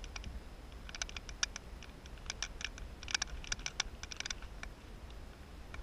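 Irregular bursts of sharp clicks and crackles, starting about a second in and stopping a little past the middle, over a low steady rumble.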